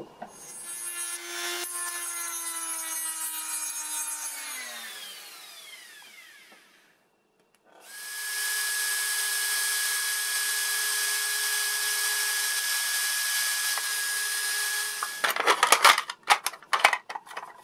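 A handheld rotary tool runs against a hard plastic toy shell in two passes. The first pass slows and winds down, and the second is a steady run of about seven seconds that stops suddenly. A quick series of clicks and knocks follows near the end as the tool and the plastic body are handled.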